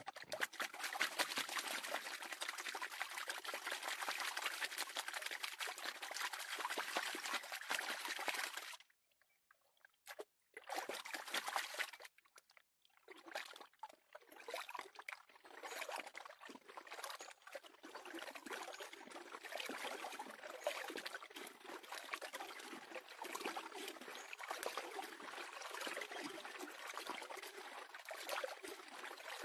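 Gold pan being shaken and swirled under shallow creek water, water sloshing and trickling over its rim as the gravel is washed down. The splashing is dense and steady at first, stops briefly about nine seconds in and again around twelve seconds, then goes on fainter and more broken.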